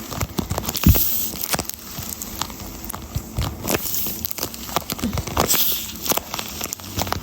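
A paper squishy being squeezed and handled in the hands: irregular crinkling and crackling of the paper.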